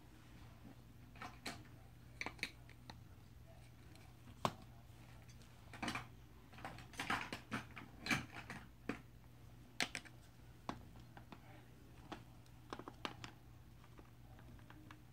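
Scattered light clicks and taps with a few soft rustles, the kind made by small objects being handled, busiest in the middle, over a faint steady low hum.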